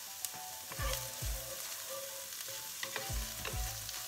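Diced red onion sizzling in hot olive oil in a pan, stirred with a wooden spoon. Low thuds come in pairs, about a second in and again about three seconds in.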